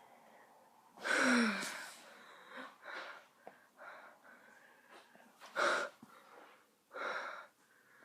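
A person forcing out burps while trying to burp the alphabet: a long burp with a falling pitch about a second in, then small gulps and breathy sounds, and two more short, strong ones later.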